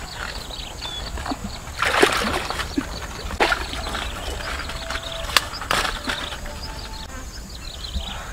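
Water splashing and large lotus leaves rustling as someone wades through a lotus pond, in several short bursts with sharp snaps, the biggest about two seconds in.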